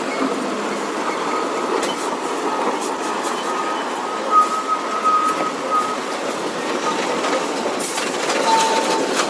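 Heavy vehicle running: a steady noise with a high tone that comes and goes and a few sharp clicks.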